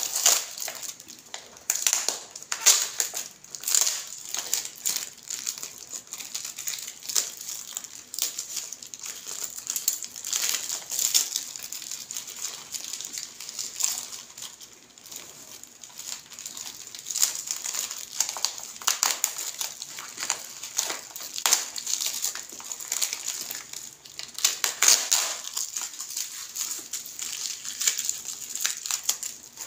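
Crumpled packing wrap crinkling and rustling as it is pulled by hand off a potted plant and balled up. The crackles come irregularly, with louder stretches near the start and about five seconds before the end.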